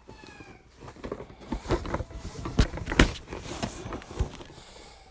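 Cardboard product box handled and turned over close to the microphone: rubbing and rustling with a string of sharp knocks, the loudest two coming about two and a half and three seconds in.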